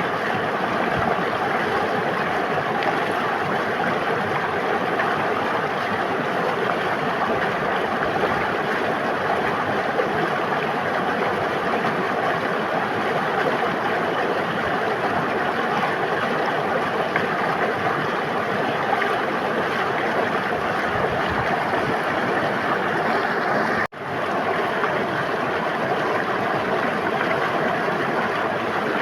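River water running: a steady rushing, babbling flow, with a momentary cut-out near the end.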